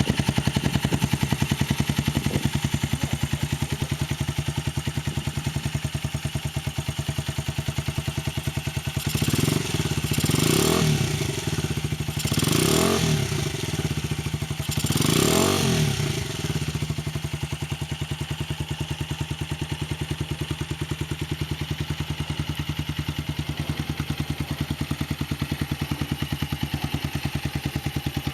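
An engine idling steadily, revved up and let fall back four times in quick succession in the middle.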